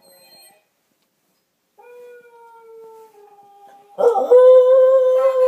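Scottish terrier howling: a faint, long, steady howl, then about four seconds in a loud, long howl that holds one pitch.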